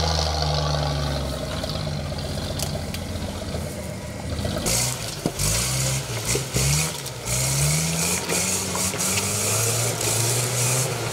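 Off-road 4x4's engine running steadily, then revving up and down repeatedly as it works through the track, with a loud rushing hiss joining in about four and a half seconds in.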